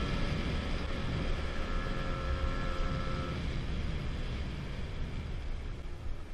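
Two-stroke 50 cc scooter engine (MBK Booster with a Polini 50 kit) running while riding, under heavy wind rumble on the helmet-mounted camera. Its faint steady whine fades out about three and a half seconds in.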